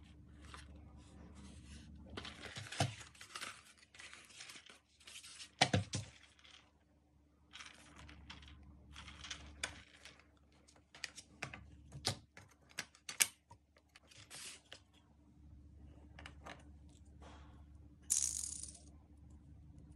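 Unboxing handling of a precision screwdriver set: cardboard box scraping and rustling as it is opened and the plastic case slid out, then a run of sharp clicks and knocks as the plastic case and its lid are opened and the parts handled.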